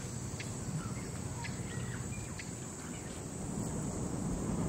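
Bush ambience: a steady low rush with insects and a few short, high bird chirps scattered through it.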